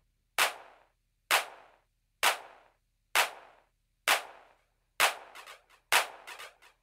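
Stripped-down break in a disco track: a sharp drum-machine hit, snare-like, repeats about once a second with no kick drum or bass. About five seconds in, quieter percussion hits start filling the gaps between them.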